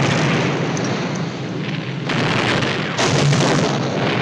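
Large fireball explosions: a continuous dense rumble, with fresh blasts breaking in about two and three seconds in.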